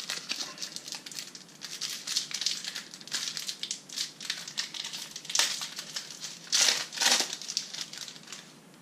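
Foil wrapper of a Panini trading-card booster pack crinkling and tearing as it is opened, with louder crackles about five and a half and seven seconds in.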